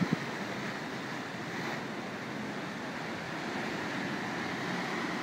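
Steady wash of choppy sea water, with a couple of brief knocks right at the start.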